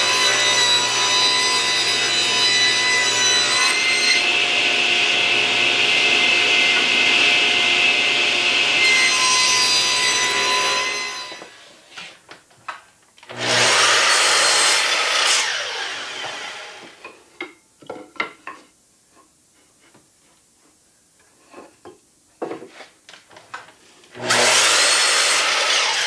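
Table saw fitted with a glue-line rip blade running and ripping a board lengthwise, its motor whine joined by a louder cutting hiss in the middle, for about eleven seconds. Then a sliding compound miter saw makes two short crosscuts about ten seconds apart, with a few handling clicks between.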